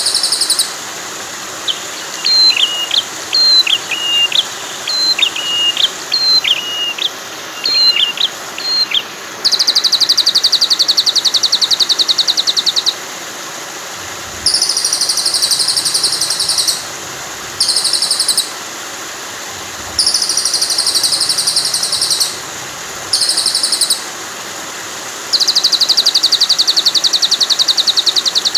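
Recorded songbird calls over steady running water. First comes a run of short whistled notes that slide up and down. Then rapid, dry trills repeat in bursts of one to three seconds, with short gaps between them.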